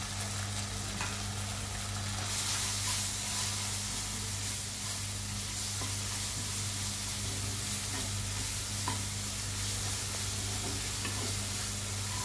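Onion, ginger-garlic paste and ground spices sizzling in hot oil in a pan while being stirred, with faint ticks of the spoon against the pan; the sizzle gets louder about two seconds in.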